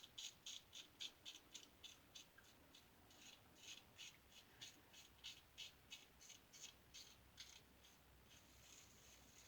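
Faint, short scratchy strokes of a Gem safety razor shaving stubble, about four a second at first and then more spaced out.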